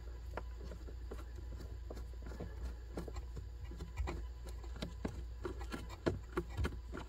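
Faint, scattered clicks and taps of hands working on plastic parts up behind the dashboard while freeing an actuator held by T20 screws, over a steady low hum.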